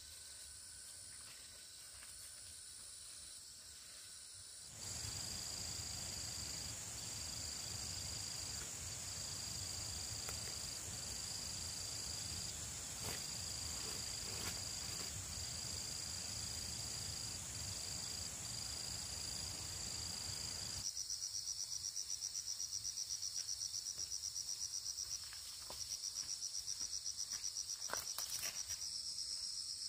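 Insects, crickets or cicadas, calling with a steady high-pitched trill. The sound changes abruptly about five seconds in. From about two-thirds of the way through, a fast, evenly pulsing chirp takes over, with a low rumble of background noise under the middle part.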